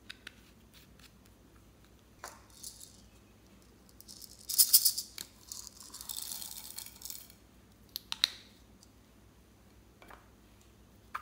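Tiny plastic beads rattling in their container and pouring out onto slime in a glass bowl: a loud rattling burst about four and a half seconds in, then a softer trickling spill, with another short rattle a little later. Light clicks of small plastic containers and lids around it.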